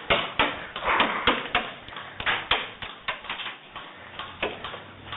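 Irregular sharp snaps and knocks, a few a second, with rustling between them: airsoft guns firing single shots and BBs striking around the player.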